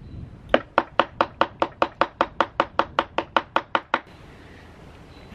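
Rapid, even series of hard taps, about five a second, that stops suddenly about four seconds in: a part being knocked against wood to clear out a dirt dauber's mud nest.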